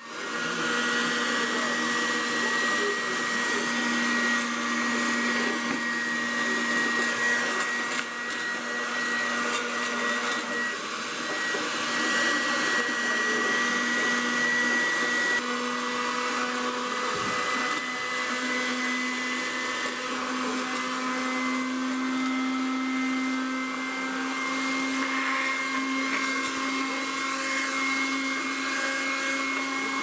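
Homemade plastic-bottle vacuum cleaner running: a 12 V DC motor spinning a tin-lid fan, driven from a 20 V laptop charger, giving a steady whine. It starts suddenly at the beginning, its pitch steps up slightly about halfway through, and scattered ticks come through around ten seconds in and again near the end.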